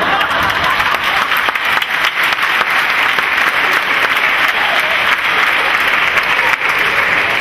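Theatre audience applauding: a dense, steady spread of many hand claps.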